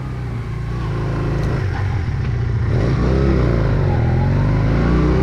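Motorcycle engine running as the bike rides along, swelling in loudness over the first couple of seconds, its pitch rising and falling as it revs.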